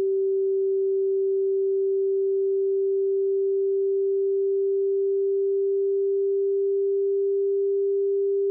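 A single pure sine tone from a software tone generator, around 390 hertz, the G above middle C, its pitch creeping very slightly upward.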